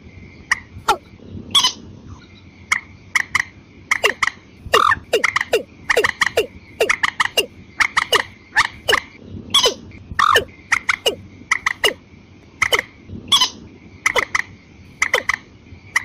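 Watercock and moorhen calling together in a bird-lure recording: a fast, irregular run of short, sharp notes, each dropping steeply in pitch, several a second, over a faint steady high tone.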